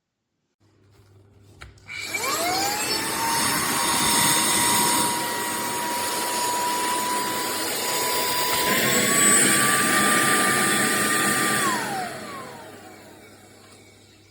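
SERVOMASTER cordless handheld vacuum switched on with a click, its motor spinning up to a steady high whine with a rush of air. About two-thirds through the whine steps up in pitch, then the vacuum is switched off and the motor winds down.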